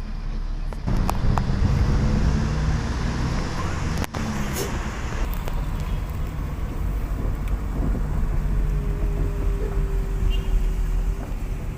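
Car engine and road noise, a low steady rumble that grows louder about a second in as the car moves off.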